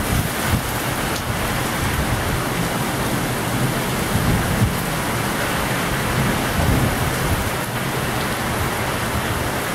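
Torrential rain pouring down in a violent thunderstorm: a loud, steady, dense hiss. Underneath it, wind gusts buffet the microphone with an uneven low rumble.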